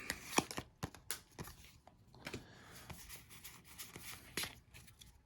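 Pokémon trading cards and foil booster-pack wrappers being handled: faint rustling with scattered small clicks and ticks, a slightly louder click about four and a half seconds in.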